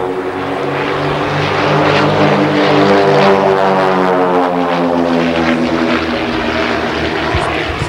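Small propeller-driven aerobatic planes flying in formation overhead: a buzzing engine-and-propeller drone whose pitch slides down through the middle as the planes pass.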